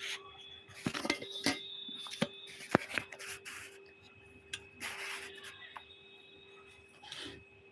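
Scattered clinks and short scrapes of a stainless steel bowl on a gas stove's burner grate, the sharpest nearly three seconds in and one more near the end, over a faint steady hum.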